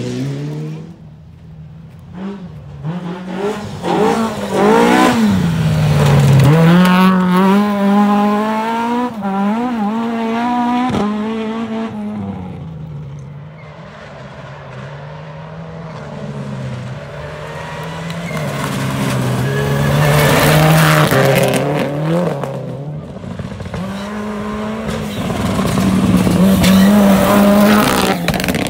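Rally car engines revving hard through the gears on a gravel stage, the pitch climbing and dropping back with each shift. Three cars swell up loudly as they pass, the last a Toyota Celica sliding by near the end.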